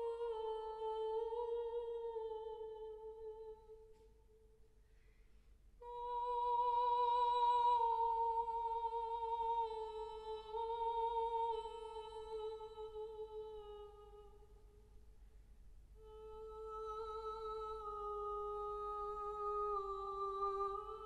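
Slow, quiet music of long held notes from a chamber orchestra with organ, the notes stepping gradually downward and breaking off twice for a second or two.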